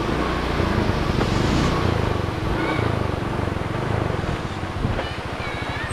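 Motorcycle engine running at low speed, a steady low pulsing under wind noise.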